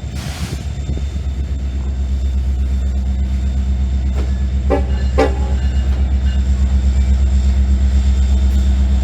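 Train rumbling with a fast throb, growing louder over the first few seconds, with a brief hiss at the start. Two short horn toots come about five seconds in.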